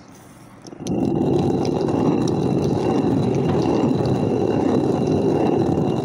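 Stone hand quern (isurayi) grinding jowar: the upper millstone is set turning by its wooden handle just under a second in and then grinds steadily against the lower stone.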